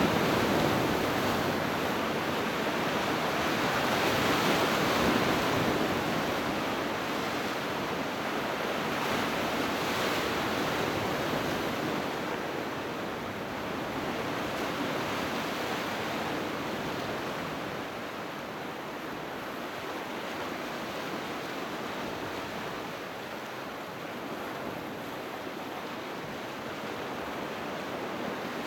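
Sea waves washing onto the shore: a steady rushing surf that swells a few times in the first half and settles a little quieter after about twelve seconds.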